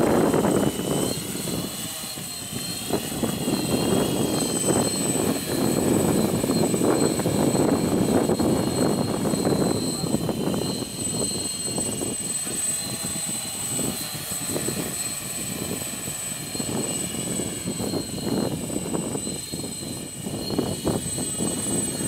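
Heavy X8 coaxial octocopter hovering: its electric motors and propellers give a steady high whine with a few wavering tones as the motors correct. Strong, gusting wind buffets the microphone with an uneven low rumble.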